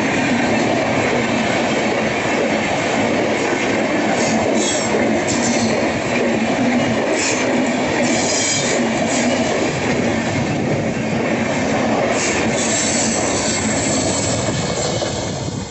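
Indian Railways sleeper coaches passing close by: a steady, loud rumble of steel wheels on rail, with short high wheel squeals several times as the train rounds the curve.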